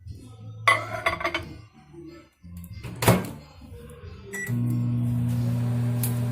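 Microwave oven: a few knocks and clatters, a short beep, then the oven starts running with a steady hum about four and a half seconds in.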